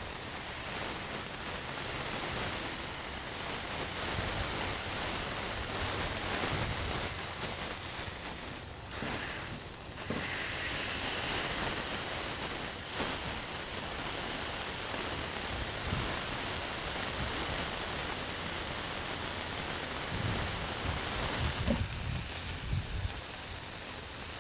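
Ground-beef patties sizzling on a hot steel griddle as they are pressed flat under a stainless-steel burger smasher, a steady hiss with a short dip about nine seconds in.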